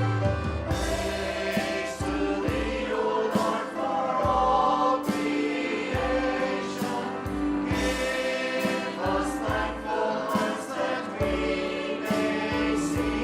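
A church worship group singing a hymn together with a praise band accompanying them over a steady beat.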